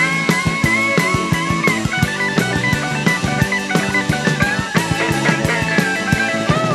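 Rock band playing an instrumental passage: a lead guitar line with bent, sliding notes over a steady drum kit beat.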